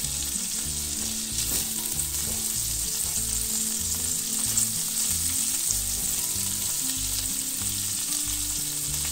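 Diced bacon sizzling steadily as it fries in lard in an aluminium pot, stirred around with a silicone spatula.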